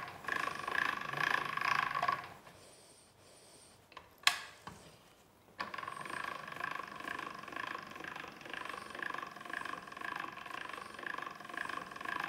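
Hand-cranked pasta machine rolling a sheet of stiff cannoli dough: a steady, rhythmic whirring of the crank and rollers. It stops about two seconds in, a single sharp knock follows, and it starts again about halfway through.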